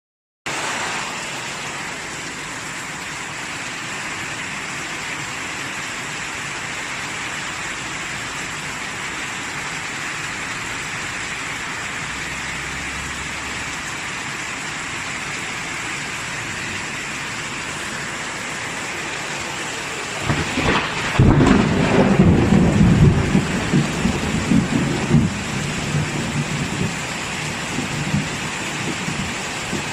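Steady heavy rain hiss, with a roll of thunder coming in about two-thirds of the way through: a loud low rumble with a sharp crack at its start that dies away over about five seconds.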